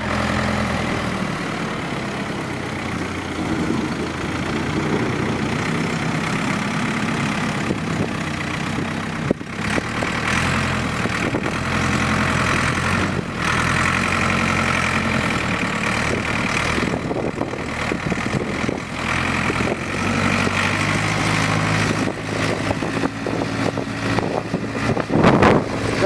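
Ford 555C backhoe's Ford industrial diesel engine running as the machine pushes snow with its front loader bucket, the engine note shifting as the load changes. A sharp clunk about nine seconds in.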